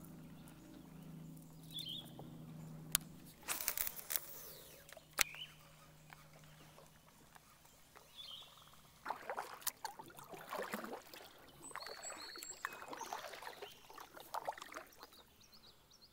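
Hobie Compass kayak moving on calm river water: occasional knocks and short swishing noises from the boat, with a few faint bird chirps.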